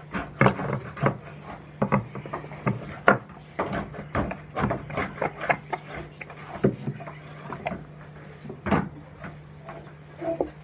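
Metal spoon scraping and knocking against the inside of a wooden mortar, clearing out ground spice paste in a run of irregular scrapes and taps.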